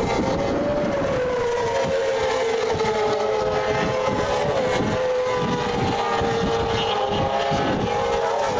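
Racing motorcycles running at high revs along the track, giving a steady high engine note that wavers slowly in pitch as they pass. Wind rumbles on the microphone underneath.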